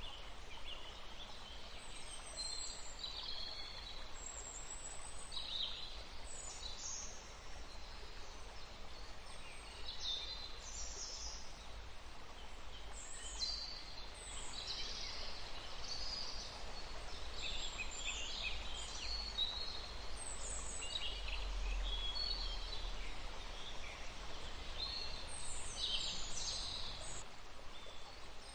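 Wild birds singing and calling: many short chirps and trills overlapping throughout, over a steady background hiss of outdoor ambience.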